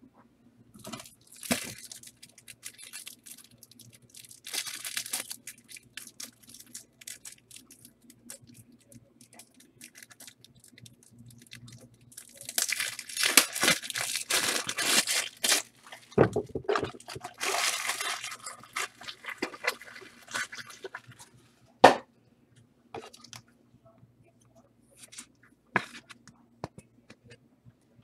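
Trading card pack wrappers being torn open and crinkled, in several bursts of crackling, with a few sharp taps near the end.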